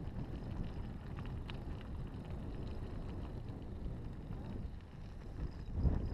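Wind buffeting the microphone over mountain-bike tyres rolling on a gravel track, with scattered small crunches from the stones. A louder gust of rumble comes near the end.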